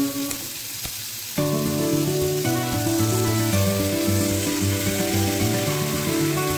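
Food sizzling on a hot griddle pan as a cream sauce is spooned over the chicken breasts, under background music that drops away at first and comes back in about a second and a half in.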